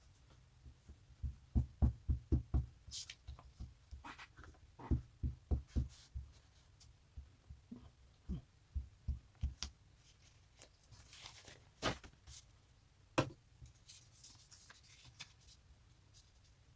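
Glue stick rubbed over paper on a tabletop in quick strokes, giving runs of soft low knocks, with a few sharp clicks and brief paper rustling.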